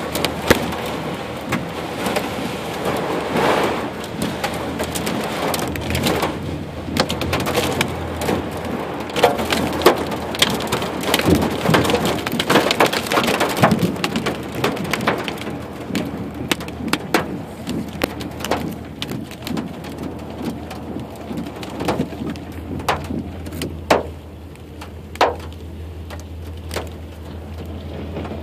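Hail and heavy rain pounding on a truck's roof and windshield, heard from inside the cab. It is a dense clatter of hard hits over the rush of rain, which thins out about halfway through into scattered loud knocks, with a steady low hum underneath.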